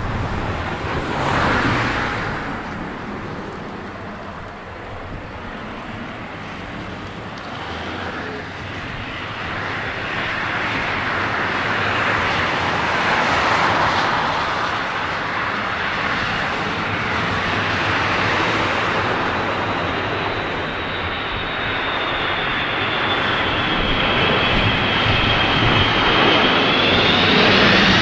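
Boeing 767-300ER's twin jet engines on final approach, a steady rushing engine noise that grows louder as the airliner comes closer. A high fan whine comes in over the last several seconds.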